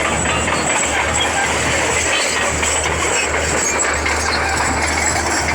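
Bulldozer's diesel engine running steadily under work.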